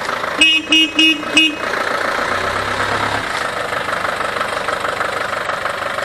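Vintage bus horn giving four short toots in quick succession, over the steady sound of an engine running.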